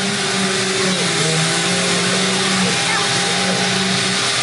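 RIDGID wet/dry shop vacuum running steadily, drawing air through its long hose.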